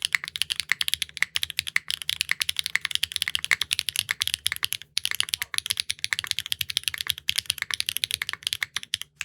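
Fast, continuous typing on a Neo65 Core Plus mechanical keyboard built with an aluminum plate, no foam and GMK keycaps, fitted with clacky HMX linear switches (P7 nylon bottom housings). The keystrokes are sharp and bright, many per second, with brief pauses about five seconds in and near the end.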